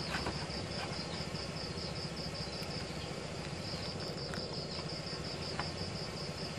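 An insect chirping steadily in even, high-pitched pulses, about five a second, with a brief pause midway.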